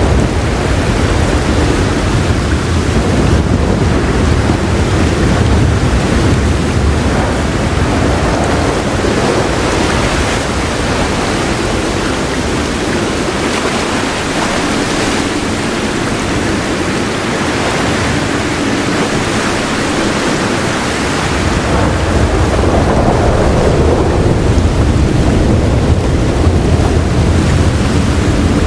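Heavy rain falling steadily, with a low roll of thunder underneath that dies away about twelve seconds in and rolls back in about twenty-one seconds in.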